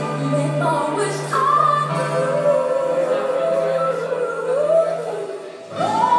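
A recorded song playing: a female singer holds a slow, drawn-out melody over sustained backing, with a rising vocal swoop and a new low note near the end.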